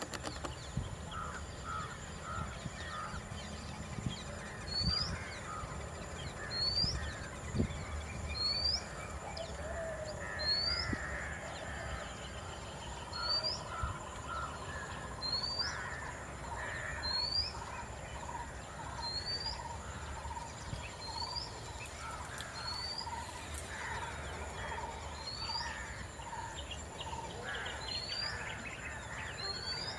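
Wild birds calling in forest. One bird repeats a short rising whistle about every two seconds over scattered chirps from others, with a run of quick, even notes from another bird in the middle.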